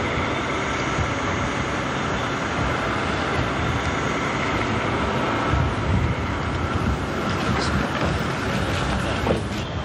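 Steady outdoor background noise with a heavy low rumble.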